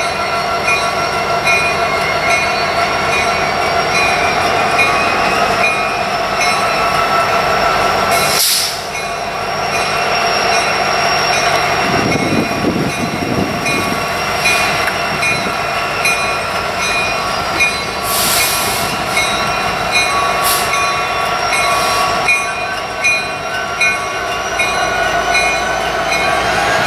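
Slow-moving freight train led by Union Pacific SD70ACe diesel locomotives: a steady locomotive rumble with the wheels squealing in several thin, drawn-out tones against the rails. A car passes close by about halfway through.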